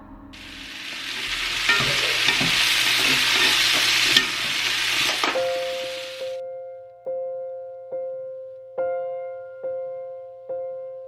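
Food sizzling in a hot pan, an even high hiss that stops suddenly about six seconds in. Soft piano music follows, one note struck over and over, a little more than once a second.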